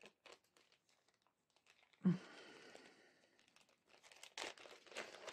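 Small zip-lock plastic bag rustling and crinkling as hands handle it and take a screwdriver out, in short spells with near silence between. A few light clicks and taps come near the end.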